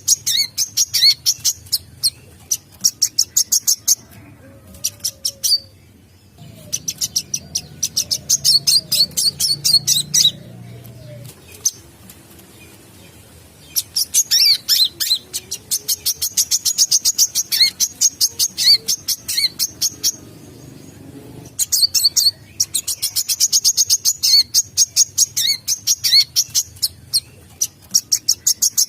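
A sunbird singing: long runs of rapid, high-pitched chirps repeated in quick succession, broken by several short pauses.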